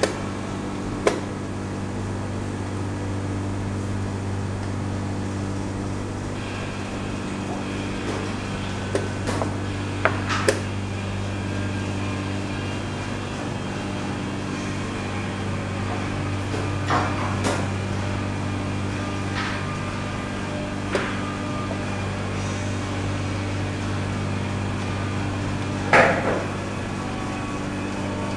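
Wooden chess pieces set down on a wooden board and a chess clock being pressed during a blitz game: about ten short, sharp knocks and taps at irregular intervals, the loudest near the end. Under them runs a steady low hum.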